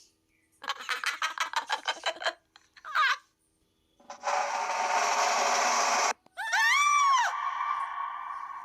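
Short comedy sound-effect clips played one after another: a rapid rattle of clicks, a brief wavering tone, a noisy burst of about two seconds, then a cartoon-like tone that arcs up and down in pitch and rings on, slowly fading.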